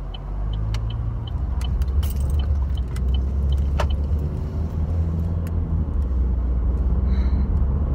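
Car engine and road noise heard from inside the cabin, a low rumble that grows louder over the first second or two as the car pulls away. Light ticking and jingling runs over it.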